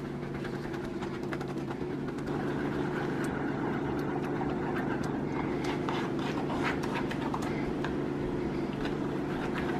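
A wooden spoon scraping and pushing tomato purée through a mesh strainer, with soft irregular scrapes and clicks against the mesh and rim. A steady machine hum runs underneath and is the loudest sound.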